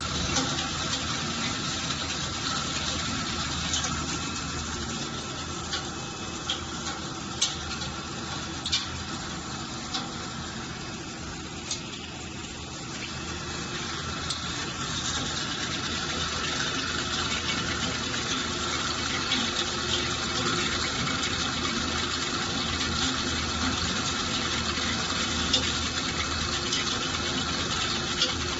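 Steady workshop machinery noise: an even hiss with faint steady tones and a few sharp clicks in the middle stretch.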